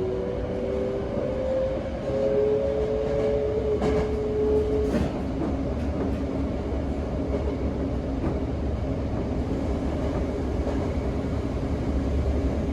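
Mitsubishi GTO VVVF inverter of a Toei 5300 series train whining in two steady tones, heard inside the car. The whine cuts out about five seconds in, leaving the low rumble of the running gear on the rails, with a couple of faint clicks near the cutoff.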